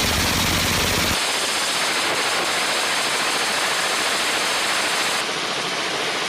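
Sustained rapid automatic-gunfire sound, a dense continuous rattle; its deep low end drops away about a second in, and it gets a little quieter near the end.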